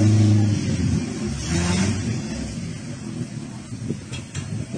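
Small van's engine running and revving as it reverses slowly over planks, strongest in the first second with a second swell about two seconds in. A few short clicks or knocks near the end.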